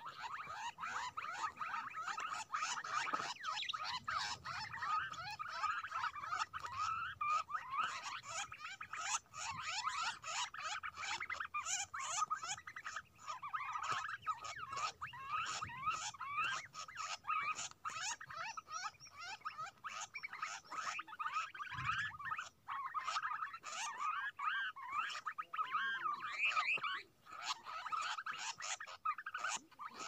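A flock of small birds chirping and twittering, many short squeaky calls overlapping without a break.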